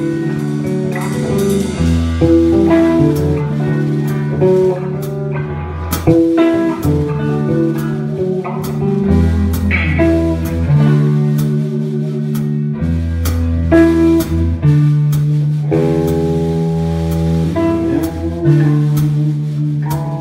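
Live blues-rock band playing an instrumental passage: electric guitars over a bass guitar line and a drum kit with cymbal hits.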